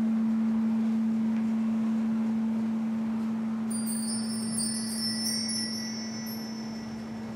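Quartz crystal singing bowl ringing on after being played: one steady low tone, slowly fading. Faint thin high tones come in about halfway through.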